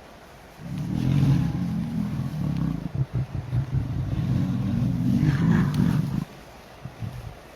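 Male lion purring: two long, low, pulsing rumbles, one after the other with a short break between.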